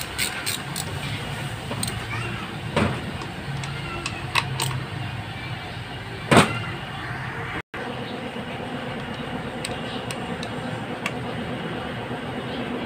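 Scattered clicks and knocks of parts being handled during a transmission teardown, the loudest knock about six seconds in, over a steady background hum. The sound cuts out for an instant a little past halfway.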